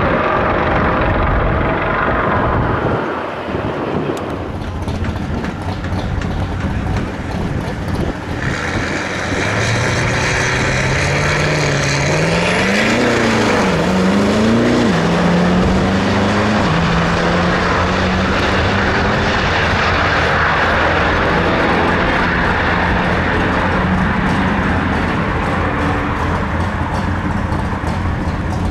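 Turbo-diesel pickup truck engines at full throttle on a drag strip. Partway through, a new pair revs up and down several times, then pulls with a long, steady drone.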